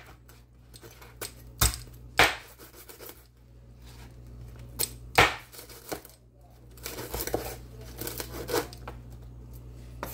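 Cleaver chopping crispy pork belly on a wooden cutting board: a handful of sharp chops as the blade strikes the board, the loudest about two and five seconds in. Near the end there is a quicker run of lighter crackly knocks as the crisp crackling breaks up.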